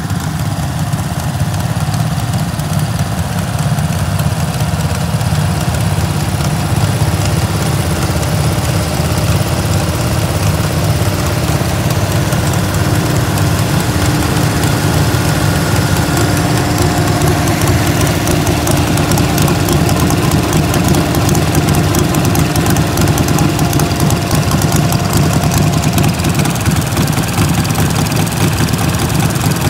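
Several Massey Ferguson garden tractors' small engines idling together at the same time, a steady running drone.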